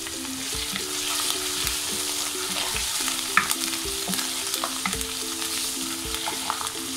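Chopped onion, ginger and garlic sizzling in hot oil in a nonstick wok, stirred with a wooden spoon that now and then clicks and scrapes against the pan.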